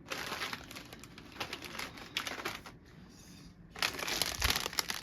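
Crinkling plastic snack packaging, a bag of potato crisps being handled and turned over, in a few bursts with short pauses between.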